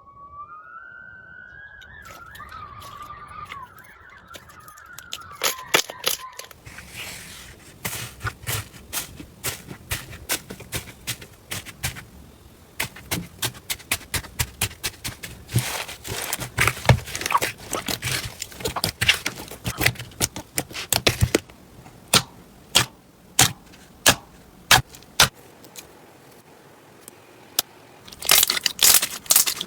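Crunchy slime being pressed and squished by hand, giving a run of sharp crackling clicks and pops, densest in the middle and near the end. At the start a wavering high squeal rises and fades out over the first few seconds.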